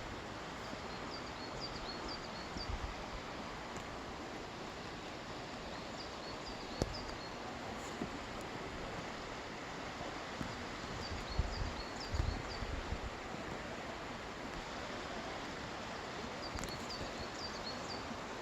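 A songbird singing a short phrase of quick high notes, repeated four times about five seconds apart, over a steady outdoor hiss.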